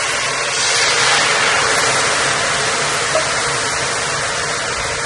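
White wine poured into a hot pan of toasted risotto rice with oil and butter, sizzling loudly as it hits the hot pan and boils off. The steady hiss eases slightly near the end.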